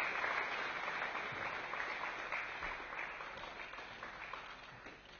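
Audience applauding, a dense patter of many hands clapping that gradually dies away toward the end.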